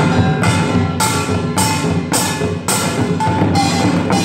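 Samulnori ensemble playing in a fast, steady rhythm. Kkwaenggwari small gongs clang about twice a second over janggu and buk drums, with gong tones ringing through.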